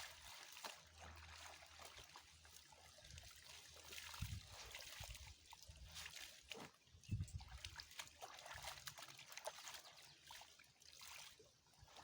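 Faint trickling and splashing of shallow stream water, with two low thumps about four and seven seconds in.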